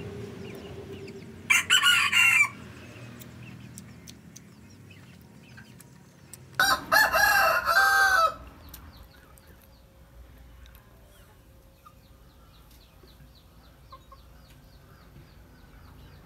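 A rooster crowing twice, loudly: once about a second and a half in, and again, longer, about six and a half seconds in.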